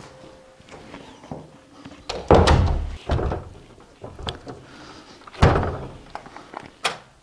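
Door shutting with a heavy thud about two seconds in, then a second heavy thud about three seconds later, with lighter knocks and clicks between.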